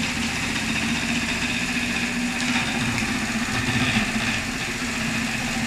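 Chache computerized pattern sewing machine stitching steadily, a continuous motor hum with the needle's even mechanical chatter as the clamped template is driven under the needle.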